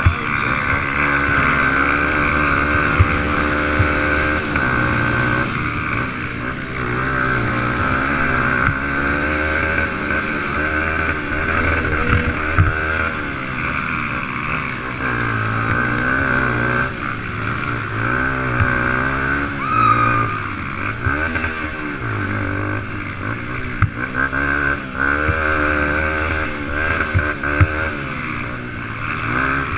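A 125 cc racing ATV's engine heard up close from a camera mounted on the quad, revving up and down as the rider accelerates and shifts along a rough dirt track, with a few sharp knocks from the machine hitting bumps.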